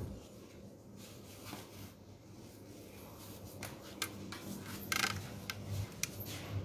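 Quiet room tone with a few faint clicks and a brief rub about five seconds in.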